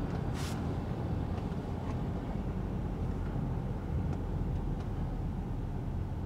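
Cabin noise of a BMW F30 328i with its rebuilt N20 turbo four-cylinder on the move: a steady low rumble of engine and road noise heard from inside the car, with a short hiss about half a second in.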